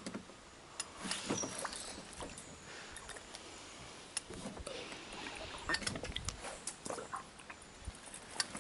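Scattered small clicks, taps and knocks from gear being handled aboard a small fishing boat, with a few dull thumps on the deck.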